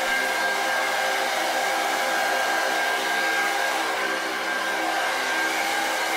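Hair dryer running steadily: an even rush of air with a constant motor whine on top.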